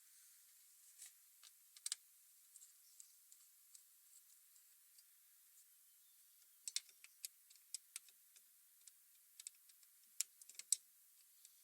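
Near silence broken by scattered light, sharp clicks and taps, coming singly or in small clusters of several.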